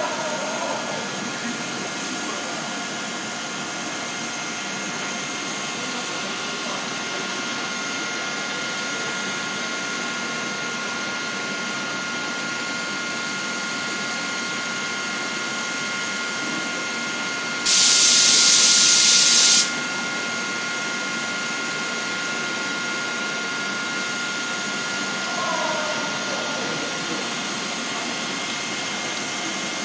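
Korail 1000-series electric train standing at the platform, its onboard equipment giving a steady hum with a few constant tones. About two-thirds of the way through, a loud hiss of released air starts suddenly and cuts off after about two seconds.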